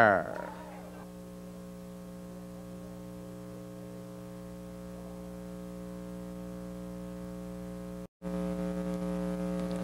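Steady electrical mains hum, a low buzz with its stack of overtones. It cuts out for a moment about eight seconds in, then returns slightly louder.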